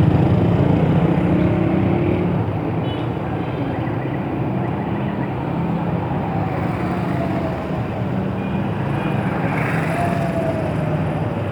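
Steady road traffic noise with engines running and vehicles passing.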